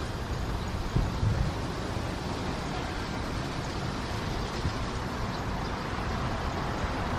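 Steady city street noise from traffic, with low rumbles of wind on the microphone, the strongest about a second in.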